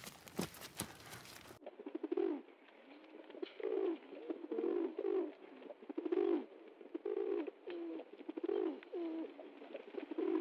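Rock pigeons cooing: a run of repeated low, gliding coos that starts about a second and a half in. Before it there are only faint scattered clicks and rustles.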